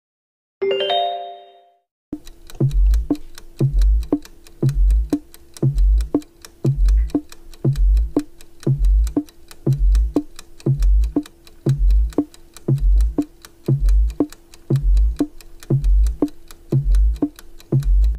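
A short chime, then quiz countdown-timer music: rapid ticking over a deep beat about once a second and a held low tone, marking the time left to answer.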